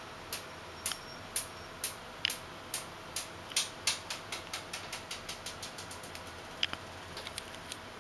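A train of light, sharp clicks from the OWON HDS1022M-N handheld oscilloscope-multimeter as it is operated, about two a second, quickening to about four a second near the middle and then fading, with one louder click near the end.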